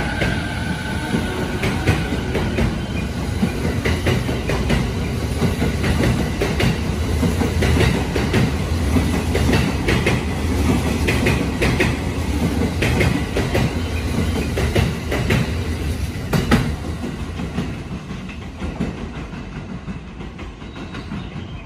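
JR electric commuter train rolling slowly past on the station tracks, a steady rumble with repeated wheel clicks over the rail joints. It grows quieter over the last few seconds as it draws away.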